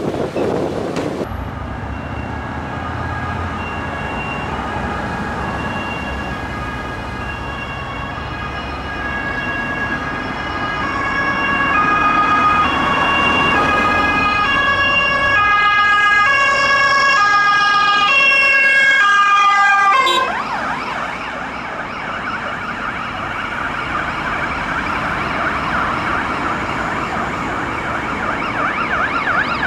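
Siren of a Mercedes-Benz Sprinter ambulance on an emergency run, alternating between two pitches and growing louder as it approaches. About two-thirds of the way through the two-tone stops abruptly and is replaced by a faster, warbling siren.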